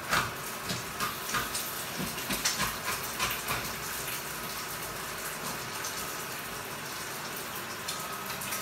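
Fried rice with vegetables sizzling in a frying pan, stirred and scraped with a wooden spatula. The spatula strokes come several times in the first few seconds, then the sizzle goes on steadily.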